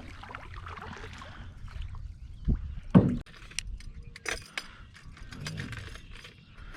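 Knocks and clicks of fishing gear being handled in a canoe: two sharp knocks about two and a half and three seconds in, the second the loudest, then a run of small clicks and rattles.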